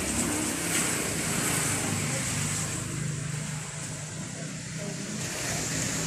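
A steady, motor-like low rumble under a constant hiss, a little quieter in the middle.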